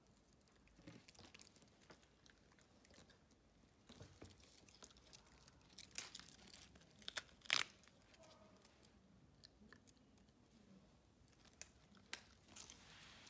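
A small dog chewing a raw cabbage leaf close to a microphone: quiet, crisp crunches and tearing, with one sharper crunch about halfway through.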